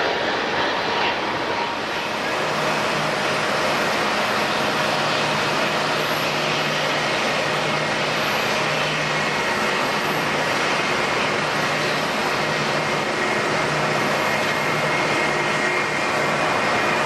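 Jet airliner engines running, a steady loud noise with several steady whining tones on top, growing a little louder near the end.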